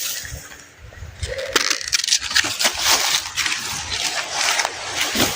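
Yam leaves being cut and pulled, a busy crackle of rustling, snapping and crunching foliage that thickens about a second and a half in.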